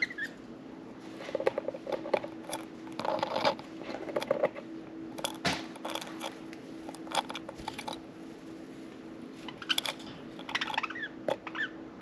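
Budgerigars nibbling and scratching with their beaks: an irregular run of small crunches and clicks, with a few short chirps near the end. A faint steady hum sits underneath.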